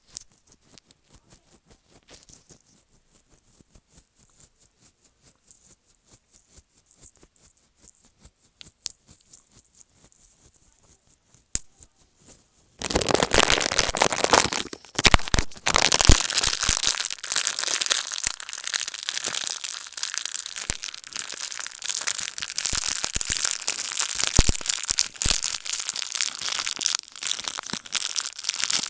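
A few faint scattered clicks, then about thirteen seconds in a dense crinkling, crackling noise starts suddenly and keeps going, as of something being crumpled.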